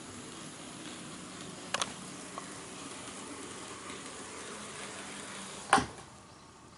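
HO-scale model EF81 electric locomotive running on sectional track: a steady whirr from its motor and wheels, with sharp clicks as the wheels cross rail joints, the loudest click a little before six seconds in.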